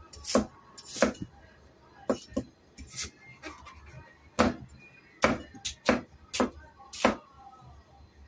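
A cleaver chopping chunks off a white daikon radish on a cutting board: about a dozen sharp knocks at an uneven pace, a few in quick pairs.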